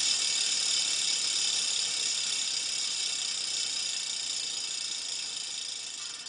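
A steady high hiss that slowly fades, then flutters and breaks up near the end.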